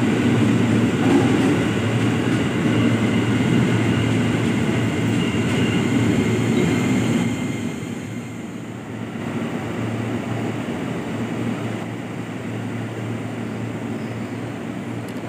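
KRL Commuter Line electric train running along a station platform: a steady rumble of wheels on rails with a faint high whine. About eight seconds in it drops to a quieter steady hum of a train at the platform.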